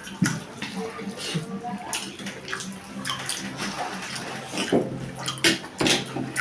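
Wet eating sounds: chewing and smacking of rice with dal and vegetable dishes, in irregular clicks and squelches.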